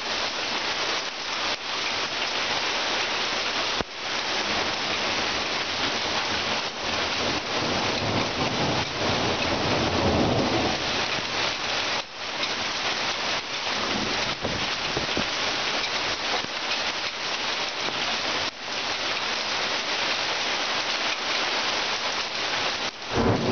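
Heavy rain pouring down steadily during a thunderstorm, with a low rumble of thunder swelling about eight to eleven seconds in.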